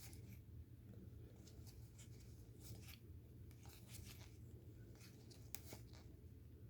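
Near silence with faint, scattered soft clicks and rustles of trading cards being handled and flipped through, over a low steady room hum.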